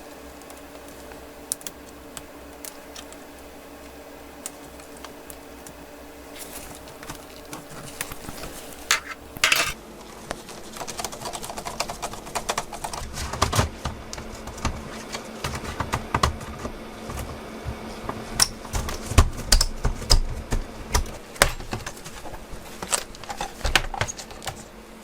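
Irregular light clicks, taps and clatter of small hard parts being handled during laptop repair work, sparse at first and busy from about nine seconds in, over a faint steady hum.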